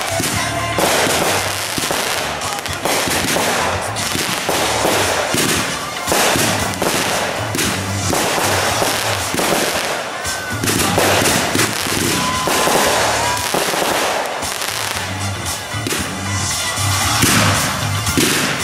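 Rapid, continuous volley of consumer firework cakes and aerial shells, with bangs and crackling bursts one after another, over music with a steady beat. A couple of brief whistles are heard about ten and twelve seconds in.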